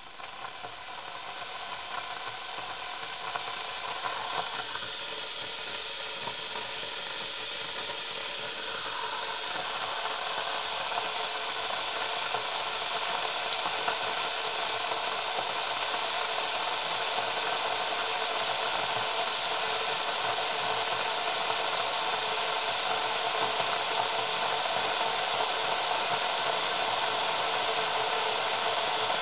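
Sinbo SCM 2922 electric Turkish coffee pot heating its liquid toward the boil. A steady hiss grows louder over the first ten seconds or so, then holds.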